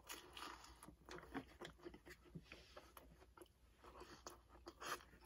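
Faint chewing of a mouthful of bacon cheeseburger, a string of soft, irregular mouth clicks and smacks.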